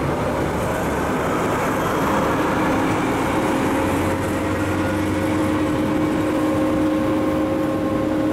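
A pair of DB class 218 diesel-hydraulic locomotives running: a loud, steady engine drone with a constant hum.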